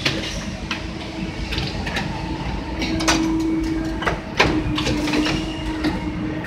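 Shoe factory assembly-line machinery running: a steady hum with scattered clacks and knocks, the sharpest about four and a half seconds in.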